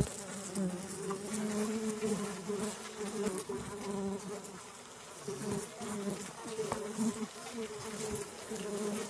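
Bees buzzing in flight: a steady, wavering hum that dips a little about halfway through.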